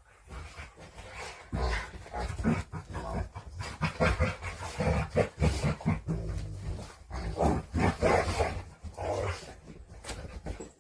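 A dog making a string of short, uneven vocal sounds, one after another.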